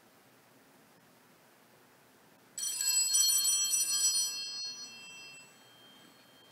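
Faint hiss, then about two and a half seconds in a bell is struck once and rings with a bright cluster of high tones that fades away over about three seconds, marking the start of Mass.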